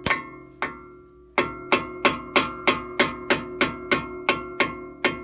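A hammer taps the brake pad retaining pin into a caliper, about fourteen metal-on-metal strikes that each ring on. The first few are spaced out, then they settle into a steady rhythm of about three a second.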